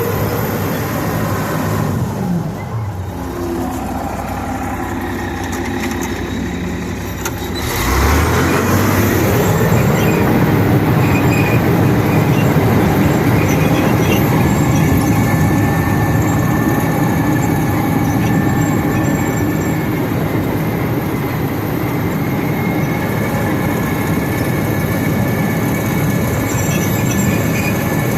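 Old International crawler bulldozer running, its engine and steel tracks giving a steady heavy clatter. The engine note drops about two seconds in, then climbs about eight seconds in and stays louder.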